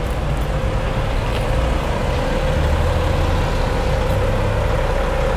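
Semi truck's diesel engine idling steadily: a low rumble with a steady whine above it.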